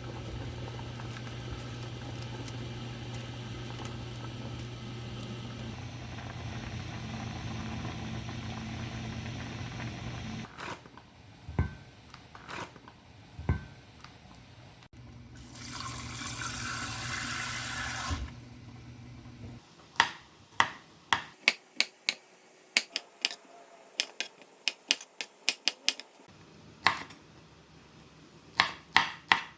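Kitchen sounds. For about ten seconds there is a steady low hum with hiss. Then come a few knocks and a short rush like a running tap, and from about two-thirds of the way in, a series of sharp knife chops on a cutting board.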